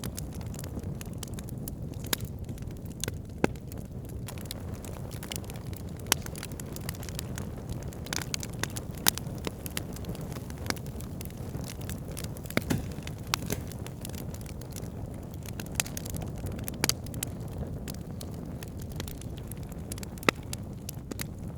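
Wood campfire burning: irregular sharp crackles and pops, with a few louder snaps, over a steady low rush.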